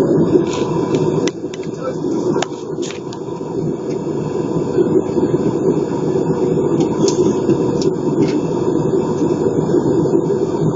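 Steady in-flight cabin noise of an Airbus A320 airliner, engine and air noise heard from a window seat, with a few faint clicks.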